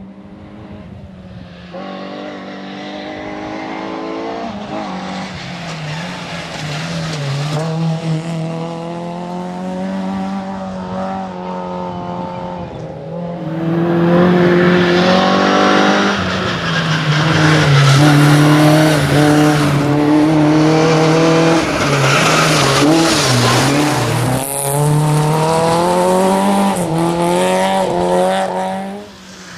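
Opel Corsa GSI rally car's engine running hard on a stage, its note climbing and dropping again and again as it revs through the gears. It gets louder about halfway through.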